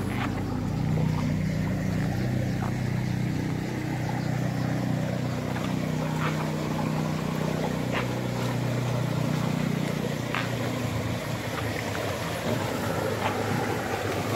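Steady rush of flood water overflowing a pond, under a low steady hum that fades in the later part, with a few faint ticks.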